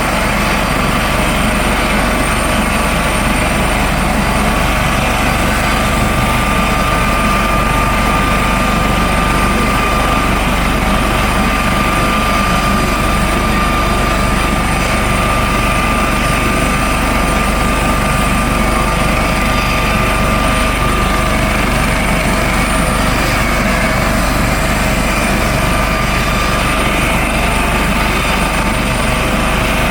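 Coast Guard helicopter running steadily: a constant turbine and rotor noise with a high, even whine.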